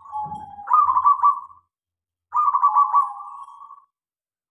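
A caged zebra dove (perkutut) cooing: a soft opening coo, then two loud song phrases, each a quick stutter of short notes running into a drawn-out lower coo.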